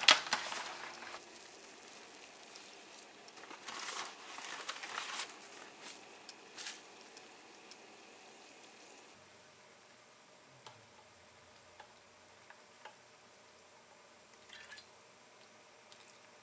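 Paper broth packet rustling and crinkling as it is handled, loudest in the first second and again about four seconds in. Then a pot of water heats faintly on the burner, with a few light clicks.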